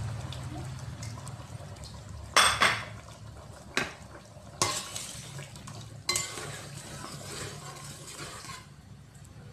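A spatula stirring thick curry in a metal pot, knocking and scraping against the pot's sides with several sharp clinks, the loudest about two and a half seconds in, and a stretch of scraping after six seconds.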